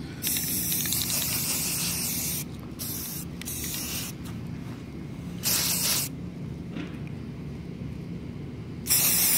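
Aerosol rattle can of gray primer spraying in hissing bursts: one long burst of about two seconds at the start, then four shorter bursts.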